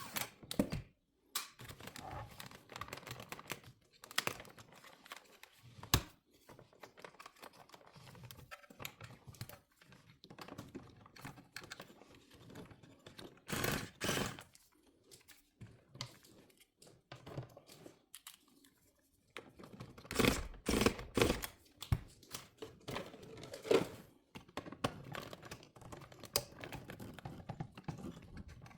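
Irregular plastic clicks, taps and rustling from hands working on car interior trim, with a cluster of louder knocks about halfway through and another run of knocks near 20 to 24 seconds.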